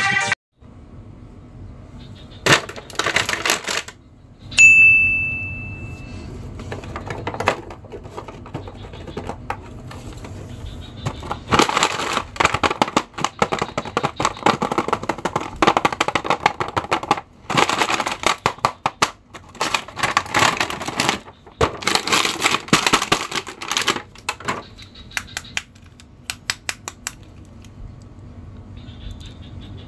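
A snatch of dance music cuts off right at the start. Then the plastic and cardboard packaging of a boxed Venom action figure crinkles and crackles in irregular bursts as hands handle it and open it, busiest about halfway through.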